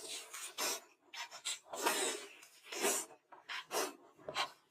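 Close-up eating sounds: irregular crunching and chewing bursts, a few a second, with soft breaths between them.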